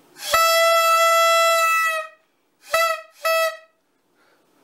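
A horn sounding one long, steady blast at a single pitch, then two short blasts of the same note.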